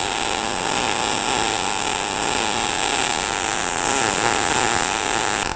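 MIG welding arc from an ESAB Rebel 235 in smart-MIG mode at 270 wire feed speed and about 18.5 V, a steady, even frying crackle. It cuts out for an instant right at the end, which the welder puts down to a lazy trigger finger.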